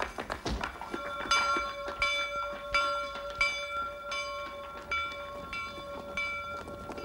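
A large bell rung by hauling on its rope, striking about nine times at an even pace from about a second in, its tones ringing on between strokes. Quick running footsteps come before the first stroke.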